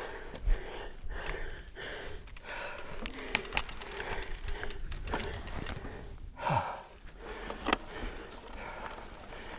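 A mountain biker breathing hard, in repeated short puffs.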